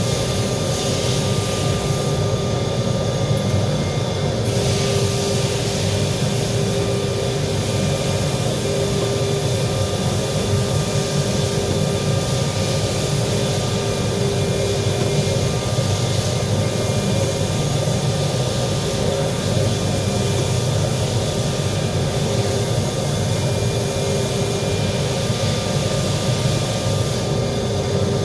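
Welding equipment running: a steady drone with a hum and a hiss.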